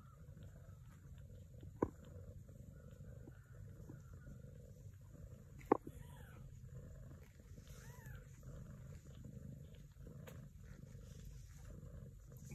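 Soft, steady purring from a sphynx mother cat nursing her newborn kittens, with a few faint kitten squeaks near the middle. Two short sharp clicks, one about two seconds in and one near six seconds, are the loudest sounds.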